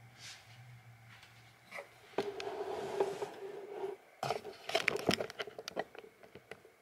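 A large piece of sherpa-backed plaid fabric rustling and brushing as it is gathered up and handled, with a quick run of soft bumps and clicks in the second half.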